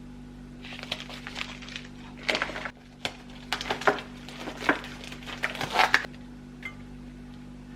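Kitchen clatter of dishes and utensils being handled: a quick run of clinks and rattles lasting about five seconds, over a steady low hum.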